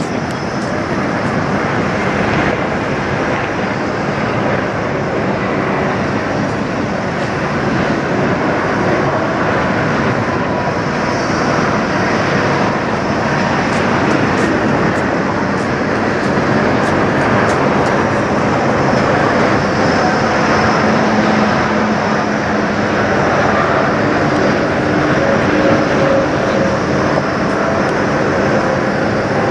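Steady diesel drone of parked semi trucks idling, a dense even rumble with faint steady engine tones and no changes in speed.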